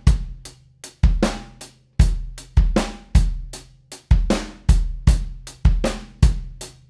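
Live-recorded drum kit playing back a steady groove of kick, snare and hi-hat. Its snare is layered with a sample from the Addictive Trigger drum-replacement plugin to give it more thwack.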